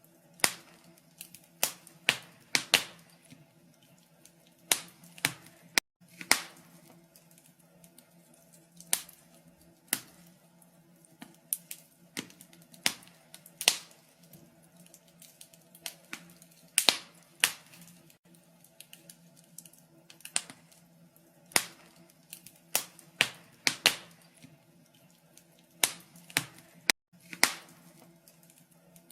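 Wood fire crackling, with irregular sharp pops and snaps of burning wood at uneven intervals over a faint steady low hum.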